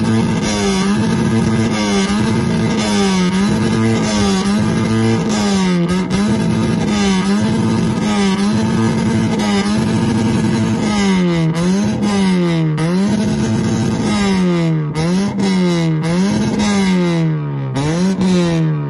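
Hyundai Elantra engine revved over and over through its exhaust, the pitch dipping and climbing again about once a second, the revs coming quicker near the end.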